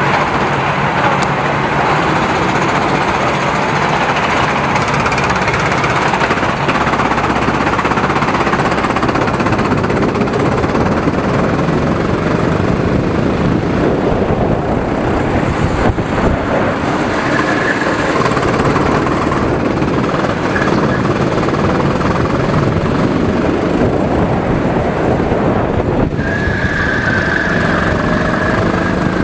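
Go-kart engine running at speed, recorded on board the kart: a loud, steady, rapid chatter, with a short high-pitched note near the end.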